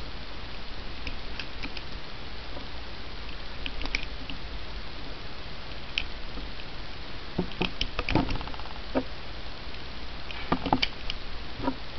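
9mm cartridges being thumbed one at a time into a steel S&W Sigma pistol magazine: irregular metallic clicks and scrapes as each round is pushed down past the feed lips against the spring, over a steady low hum.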